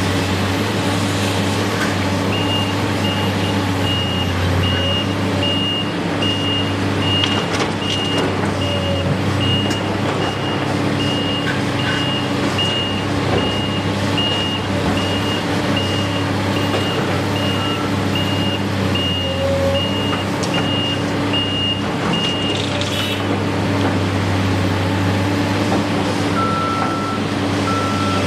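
Reversing alarm on heavy construction machinery, beeping in an even, repeating on-off pattern over a steady engine drone. The high beeping stops about 23 seconds in, and a second, lower-pitched reversing beeper starts near the end.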